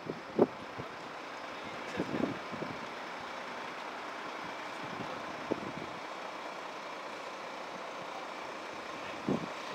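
Steady running of a Volvo FM highreach fire truck's engine and hydraulics while the aerial platform is being moved, with a few brief knocks.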